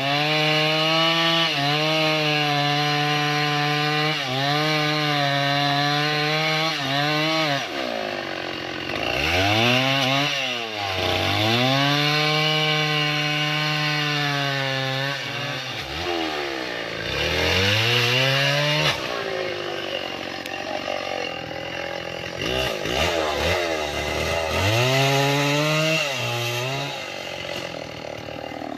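Stihl two-stroke chainsaw cutting acacia wood: the engine is held high under throttle through the cuts, then drops back toward idle and revs up again several times, with quicker short revs in the second half.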